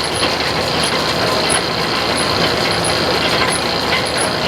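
New Holland 650 round baler running steadily on the tractor's drive, its belts and rollers turning with the tractor engine under it. A faint high-pitched tick repeats about every half second.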